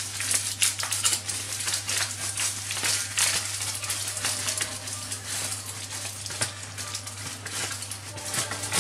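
Aluminium foil crinkling and crackling as a foil parcel is unwrapped by hand, with a steady low hum underneath.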